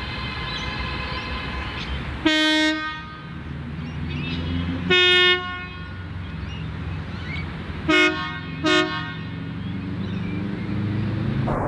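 Bicycle-mounted electric air horns, compressor-driven, sounding four blasts over a steady low background rumble. The first, about two seconds in, is longer and lower-pitched. A higher-pitched blast follows about five seconds in, then two short blasts in quick succession around eight seconds.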